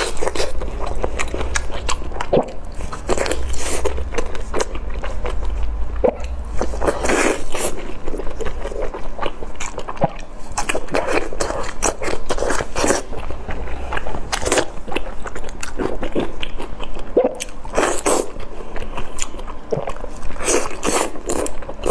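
Close-miked eating sounds: biting into and chewing a long strip of very spicy, sauce-coated food, with irregular sharp wet mouth clicks and crackles.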